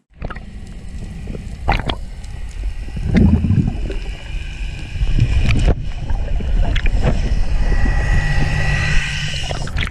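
Heard underwater: a sailing catamaran's hull and propeller passing close overhead, churning the water in a loud low rumble, with a higher whine near the end as it goes over. Several sharp knocks sound along the way.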